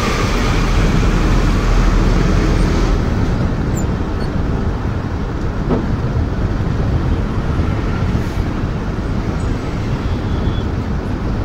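Steady engine drone and road noise inside a moving truck's cab. A heavy low rumble eases off about three seconds in.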